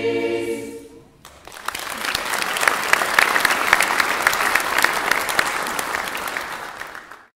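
A mixed choir holds the final chord of a carol, cutting off about a second in. Then the audience applauds, building quickly and carrying on steadily until the sound cuts off abruptly just before the end.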